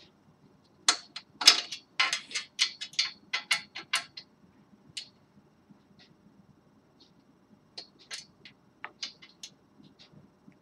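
Small metal hardware clicking and tapping as M4 screws and nuts are fitted by hand into a metal printer frame: a quick run of sharp clicks about a second in lasting a few seconds, then a few scattered clicks near the end.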